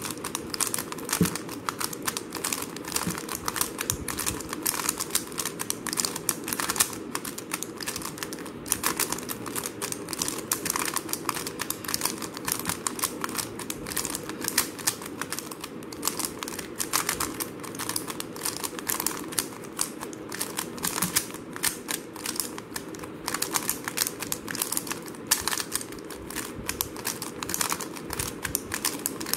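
Plastic 3x3 speed cube turned fast by hand: a dense, continuous run of sharp clicks and clacks as the layers snap round. These are repeated executions of the J-perm algorithm.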